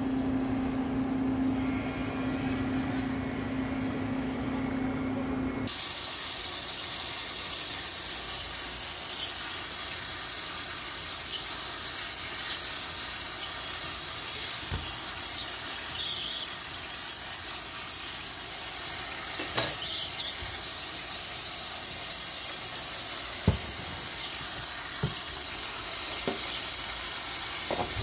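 Kitchen tap running into a stainless steel sink while a wooden spatula and a plastic colander are scrubbed with a sponge, a steady high whine riding on the water noise and a few sharp knocks of utensils against the sink near the end. For the first several seconds, before the water starts, only a steady low hum is heard.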